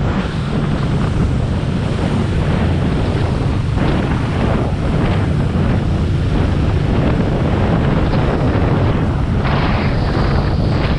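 Jet ski running steadily on the river, its engine under heavy wind buffeting on the microphone and water rushing past the hull; the hiss gets brighter about nine seconds in.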